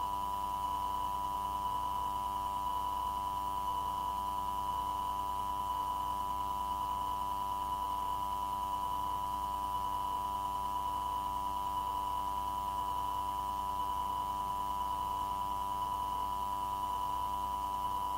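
A steady electronic tone with a fainter, higher tone and a low hum on the tower radio recording channel, with no one transmitting.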